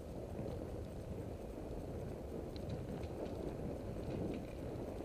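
Bicycle tyres rolling over a leaf-strewn dirt and gravel road: a steady low rumble with scattered light clicks and crunches from the surface and the bike.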